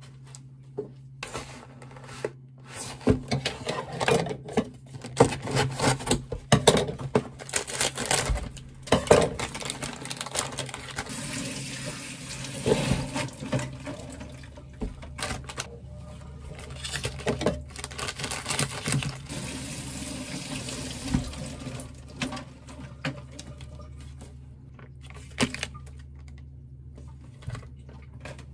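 Food-preparation handling sounds at a kitchen counter: scattered knocks and clatter, with a long rustling, hissing stretch through the middle, over a steady low hum.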